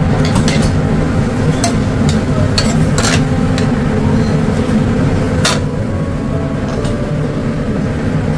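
Metal tongs clinking and scraping against a metal skillet as a steak stir-fry is tossed on a grill, several sharp clinks with the loudest about five and a half seconds in. A loud, steady low rumble runs underneath.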